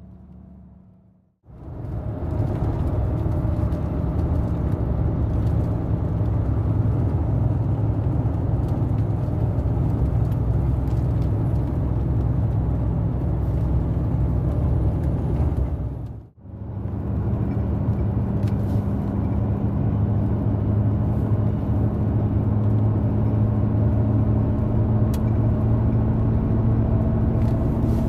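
Mercedes-Benz Actros truck's diesel engine drone and road noise heard inside the cab while cruising on the highway, steady and loud. The sound drops out suddenly for a moment about a second in and again just past halfway, where clips are joined.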